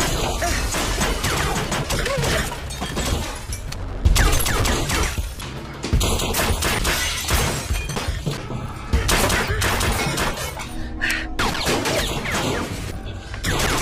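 Action-film gunfight soundtrack: pistol shots and glass shattering over a music score, with sharp impacts throughout.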